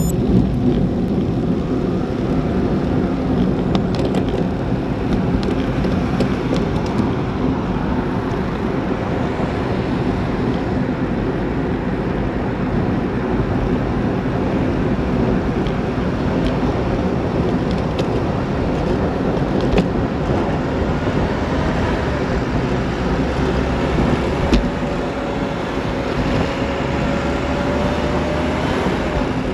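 Road traffic and wind rushing over a bicycle-mounted action camera's microphone, a steady loud noise. There are a few short knocks, the loudest about 24 seconds in. Near the end a faint rising whine comes from the Enviro400 double-decker bus just ahead.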